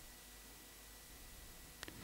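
Near silence: faint room hiss during a pause, with one brief soft click near the end.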